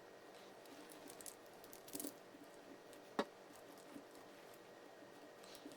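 Quiet room tone with a few faint clicks and taps of necklace pieces being handled, the sharpest about three seconds in.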